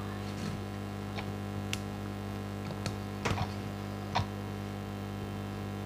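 Steady low electrical hum with a handful of light, sharp clicks and taps scattered through it, the strongest about three and four seconds in, as the cardboard-wrapped package is handled.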